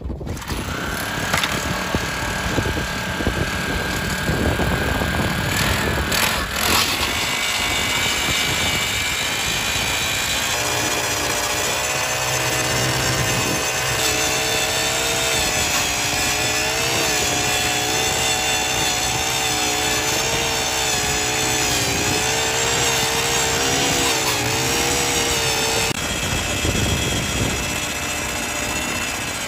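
Gas-powered ice auger's small engine running at high revs as it drills a hole through lake ice, its pitch wavering up and down through the middle of the drilling.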